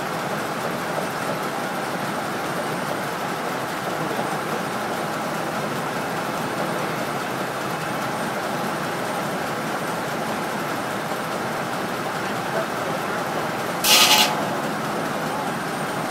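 Sawmill machinery running at a steady pitch and level, with no cut being made. About fourteen seconds in comes one short, loud, hissing burst lasting about half a second.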